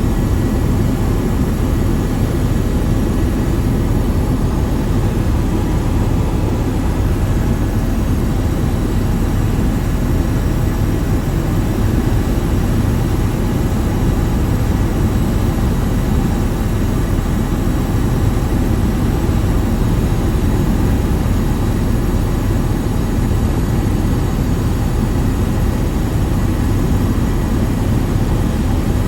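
Steady, loud low drone of an aircraft in flight, unchanging throughout.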